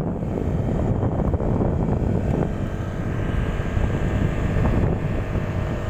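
Motorcycle engine running under way, with wind rushing over the microphone as it rides.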